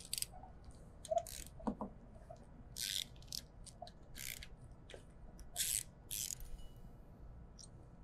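Faint ratcheting wrench clicking in about seven short strokes, as bolts holding the anti-rotation bracket on a CNC router's spindle head are loosened.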